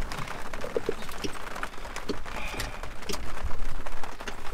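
Heavy rain on the roof of a teardrop camper trailer, heard from inside the cabin: a steady patter with many sharp drop taps.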